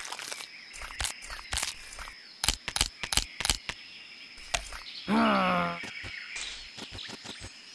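Stop-motion foley for a baby caiman biting at a clay stone head: a quick run of sharp clicks and crunches. About five seconds in comes a short pitched animal call that rises and falls in pitch, over a steady high tone.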